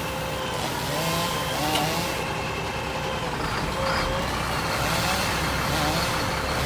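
Crane truck's engine running steadily, with faint voices in the background.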